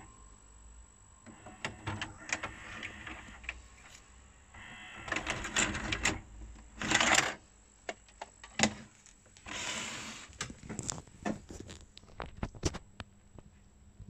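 Mechanical clicks and stretches of whirring from a Philips VR402 VHS video player's tape mechanism after playback is stopped, mixed with knocks and rubbing as the unit is handled.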